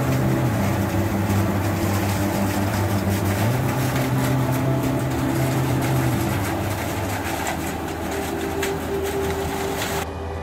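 John Deere 1450 CWS combine harvester's diesel engine running under load while it harvests maize, with a steady crackling hiss from the corn stalks going through the header and threshing drum. It gets somewhat quieter after about six seconds as the combine moves away.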